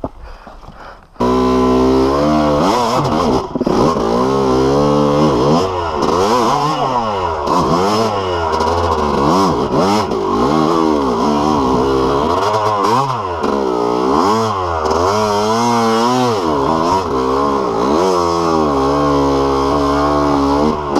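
Yamaha YZ250 two-stroke dirt bike engine, fitted with BeRad's Freight Train kit, revving under riding load. It comes in abruptly about a second in, then rises and falls in pitch over and over as the throttle is opened and closed.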